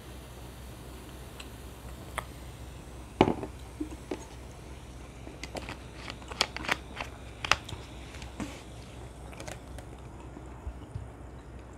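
A glass mug of cola set down on a wooden board with one sharp knock, then a run of small sharp plastic clicks as the cola bottle is handled and capped.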